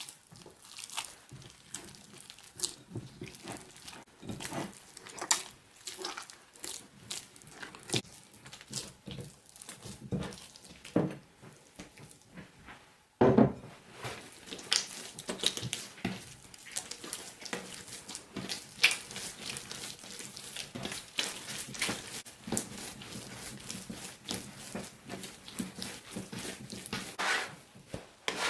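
Soft yeast dough being mixed and kneaded by hand in a bowl: irregular wet squishing, tearing and small taps, with one louder thump about 13 seconds in.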